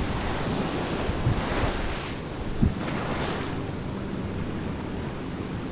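Wind rumbling on the microphone, with two gusts swelling about a third and halfway through. There is one short knock near the middle.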